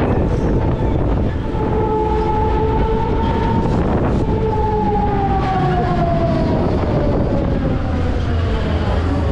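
Reactor fairground ride in motion: a whine from the ride's drive holds steady, then falls slowly in pitch over the second half, over a low rumble of wind and machinery on the onboard microphone. A single knock sounds about four seconds in.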